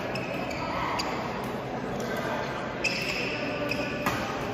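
Badminton racket hits on a shuttlecock in the second half, two sharp cracks about a second apart, mixed with high, brief shoe squeaks on the court floor.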